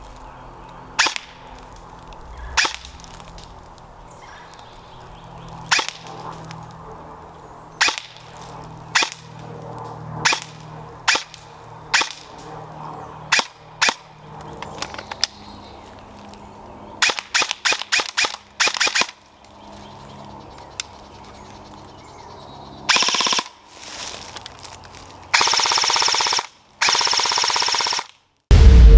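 Airsoft guns firing: single shots every second or so, then a quick string of shots, and near the end long full-auto bursts.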